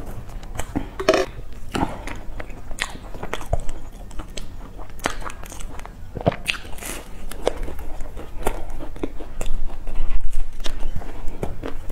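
Close-miked eating of a crisp, flaky sesame-topped pastry: bites that crackle through the layered crust, then crunching chews, with the loudest run of crunches near the end.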